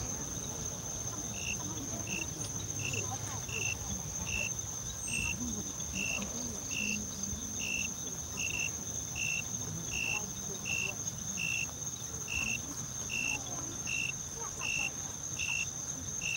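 Dusk insect chorus: a steady high-pitched drone, with a separate short chirp repeating about once every three quarters of a second.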